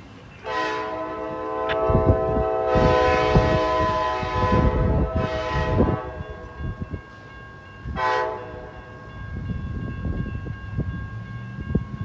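Amtrak passenger locomotive's air horn sounding one long blast of about five seconds, then a short blast about eight seconds in, as the train passes. Irregular clatter of train wheels runs underneath.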